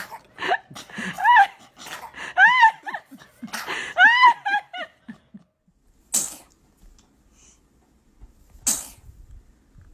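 A baby squeals several times in high-pitched, rising-and-falling cries. Then it sneezes twice, two short sharp sneezes about two and a half seconds apart.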